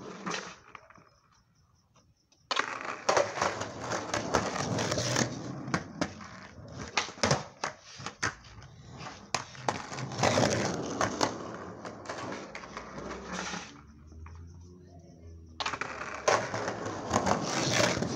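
Skateboard wheels rolling over rough pavement close by, with sharp clicks and knocks from the board. The rolling stops for about two seconds near the end, then starts again.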